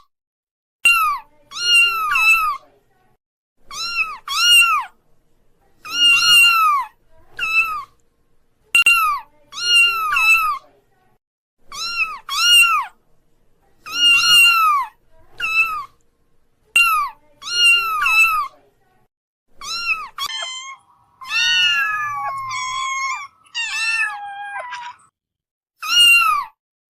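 Kittens mewing over and over: short, high-pitched mews, mostly in quick pairs, every second or two. Around two-thirds of the way through comes one longer, wavering call that steps and falls in pitch.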